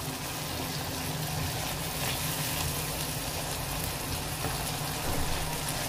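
Spice masala paste frying in hot oil in a pan, a steady sizzle, as a silicone spatula stirs it.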